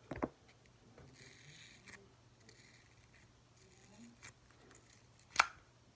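Faint sizzling crackle of slime being squeezed and played with by hand, with a few soft clicks and one sharper click near the end.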